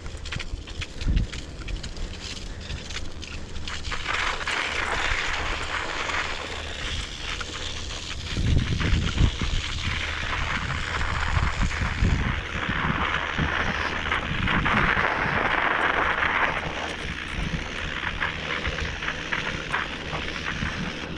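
Wind buffeting the microphone in irregular low rumbles, with a steady hiss that swells from about four seconds in and fades again near the end.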